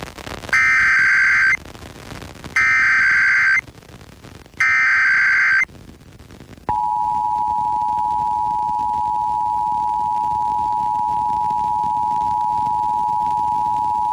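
Emergency Alert System test signal broadcast over FM radio and played through a stereo: three one-second bursts of SAME header data, a harsh digital warble, about a second apart, then the two-tone EAS attention signal (853 and 960 Hz together) starts and holds steady. This is the start of a Required Monthly Test.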